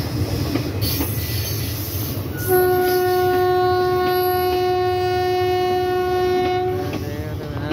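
Indian Railways passenger coaches rolling past on the track with a steady low rumble. A train horn sounds one long, steady blast from about two and a half seconds in until about seven seconds, the loudest sound here.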